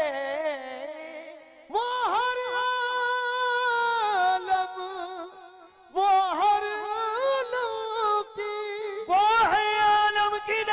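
Qawwali music: a singer's wordless, drawn-out vocal phrases with wavering ornaments, in three phrases beginning about two, six and nine seconds in, with brief pauses between them.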